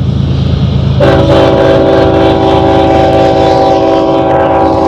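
Diesel freight locomotives' air horn sounding a long chord of several notes at once, starting about a second in and held to the end, over the steady low rumble of the locomotives' engines.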